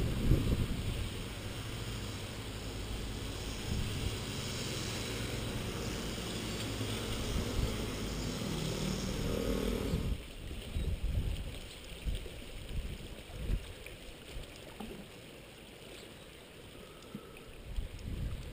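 Wind buffeting the microphone: a steady rush with low rumbling for about the first half, then quieter and coming in short irregular gusts.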